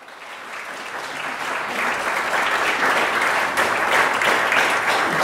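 Conference audience applauding, a dense patter of many hands that grows louder over the first few seconds.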